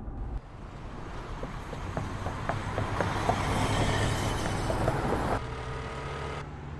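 Road traffic noise with a car coming up and pulling over. The noise builds steadily, then drops away abruptly a little past five seconds in.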